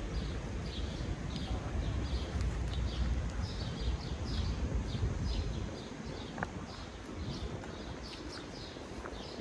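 Birds chirping, short high chirps repeating several times a second, over a low rumble that eases off about six seconds in.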